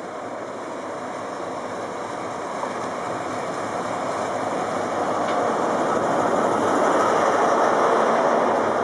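InterCity 125 High Speed Train's Class 43 diesel power car running into a station and slowing, its engine and wheel noise building steadily to a peak about seven to eight seconds in as the power car draws level, then easing slightly as the coaches roll by.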